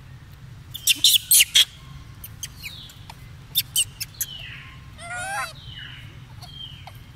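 Baby macaque calling: clusters of short, shrill squeaks about a second in and again near four seconds, with falling high-pitched cries between them and a longer wavering squeal about five seconds in.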